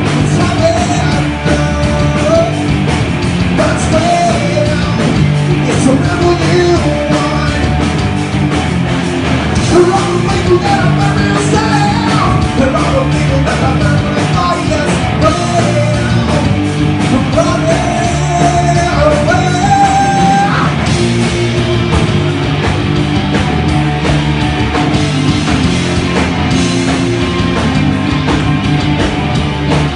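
Live grunge rock band playing loudly: electric guitars, bass guitar and drums, with a male singer's vocals over much of it.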